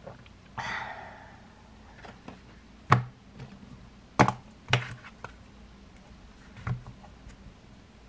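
A ceramic mug and other small objects knocked and set down on a wooden desktop: four sharp knocks, two of them close together in the middle. A short noisy sound comes under a second in.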